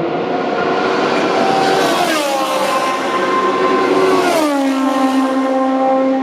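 Historic Formula 1 cars going past at high speed, one after the other. Each car's engine note drops sharply in pitch as it passes, about two seconds in and again about four seconds in.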